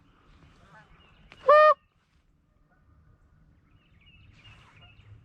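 A goose call blown once: a single short, loud honk about a second and a half in. Fainter honking of distant geese goes on behind it.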